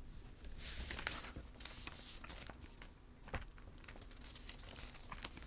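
Faint rustling and scattered small clicks of hands and blouse fabric moving close to the microphone.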